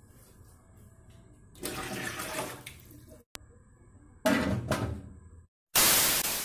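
Water swishing in a large aluminium stockpot, then the pot's aluminium lid set down on it with a loud clatter about four seconds in. Near the end comes a loud burst of TV-static hiss from a glitch transition.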